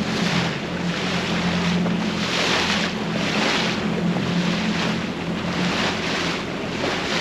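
A boat's engine running at a steady pitch, with water rushing and splashing along the hull in surges a little under once a second.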